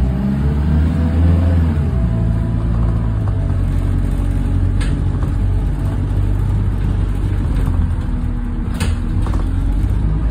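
Diesel bus engine heard from inside the passenger saloon while the bus drives along, its pitch rising as it pulls away, then levelling and dipping and climbing again through a gear change. Two short knocks or rattles come about five and nine seconds in.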